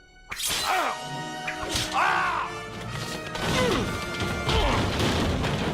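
A rapid run of crashing and smashing sound effects with whacks, mixed with music and several pitched sounds that swoop up and down.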